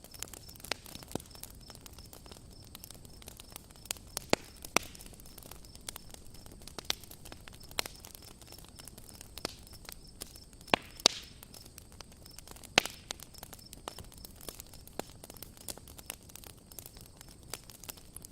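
Campfire wood crackling, with irregular sharp pops over a faint hiss. The loudest pops come about 4 s, 11 s and 13 s in.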